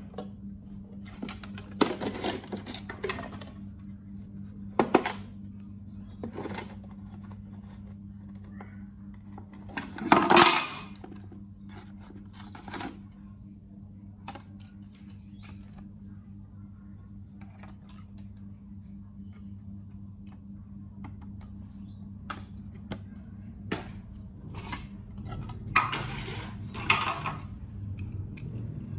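Handling noise from unboxing a mini RC helicopter: its box, clear plastic tray and plastic body tapped, clicked and clattered by hand, as scattered clicks with one louder clatter about ten seconds in, over a steady low hum.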